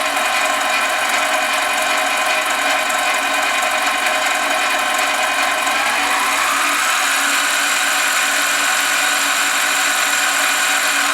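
Harbor Freight 7x10 mini lathe running steadily with the chuck spinning, its motor and gear train making a whine of many steady tones. Part of the whine drifts slightly up in pitch about halfway through.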